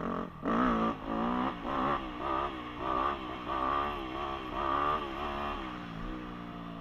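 Dirt bike engine revving up and down about twice a second in short throttle blips, then settling to a steadier, lower run near the end.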